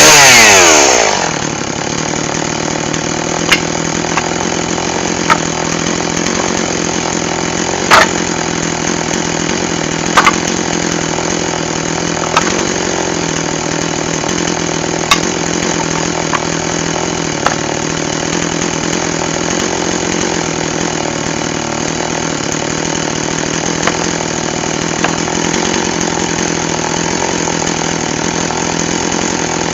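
Chainsaw engine dropping from full revs in the first second and then idling steadily, with occasional sharp clicks or knocks.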